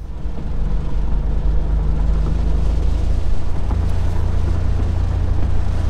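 BMW M850i's 4.4-litre twin-turbo V8 accelerating hard in sport mode with the top down: loud exhaust under a rush of wind over the open cabin. It gets suddenly louder right at the start and stays loud.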